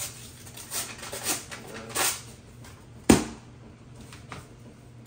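Kitchen container being handled at a counter: a few short rustles, then one sharp pop about three seconds in, the loudest sound, and a lighter click after it.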